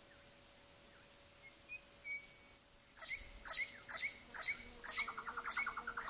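Orange-bellied parrots calling. A few faint chirps come first, then from about three seconds in a run of sharp, high chirps about two a second, with a fast buzzy trill near the end.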